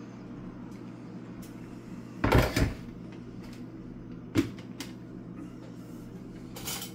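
Plastic blender jar knocked against the counter and blender base: two heavy knocks about two seconds in, a single sharp click a couple of seconds later, and a brief rattle near the end, over a steady low hum.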